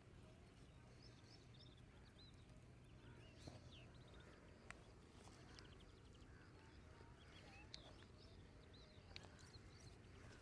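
Near silence, with faint, distant bird chirps and a few soft clicks.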